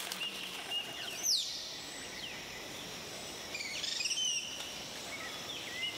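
Rainforest ambience: birds calling with short high chirps and whistles over a steady insect hiss, one falling whistle about a second in and a quick run of chirps near four seconds in.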